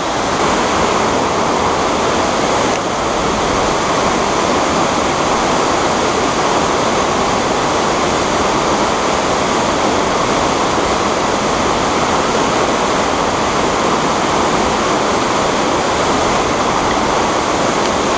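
Steady rush of water from a waterfall pouring into a pool and a fast mountain stream.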